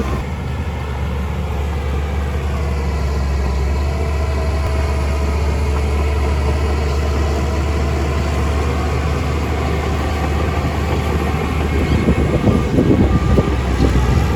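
Heavy diesel engine of construction machinery running steadily, with a stretch of louder irregular clattering about twelve seconds in.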